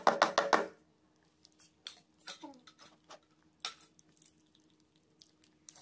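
Puppies eating dry kibble from a plastic bowl: a quick run of crunching clicks in the first second, then scattered single clicks and ticks of food against the bowl.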